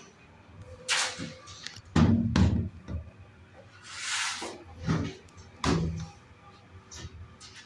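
Irregular knocks and thumps heard inside a descending elevator car, the loudest about two seconds in, with a short rushing hiss about four seconds in.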